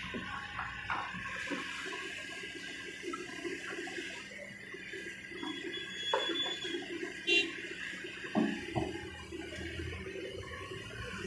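Kobelco SK200 excavator working: its diesel engine running steadily under a rushing noise of earth pouring, with scattered knocks and one short high squeak about seven seconds in.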